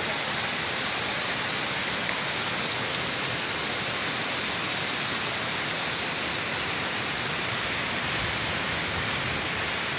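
Waterfall rushing: a steady, even wash of falling water with no let-up.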